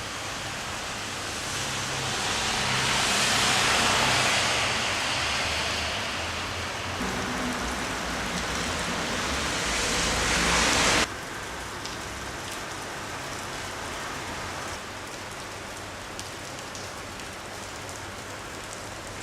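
Rain falling steadily. It swells louder for a few seconds, then drops suddenly to a quieter, steady patter about eleven seconds in.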